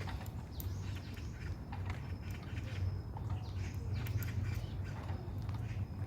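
Small birds chirping and calling in short, frequent notes over a steady low hum, with a few light clicks.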